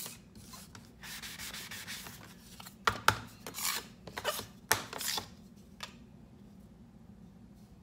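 Hand sanding of thin wooden shims with a sanding sponge: a run of rubbing strokes that prepare the wood for epoxy bonding, with a few sharp knocks around three seconds in and near five seconds. The sanding stops about six seconds in.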